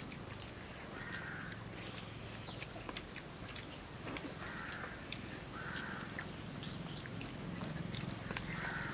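Crows cawing several times, each caw short and spread a few seconds apart, over faint scattered clicks.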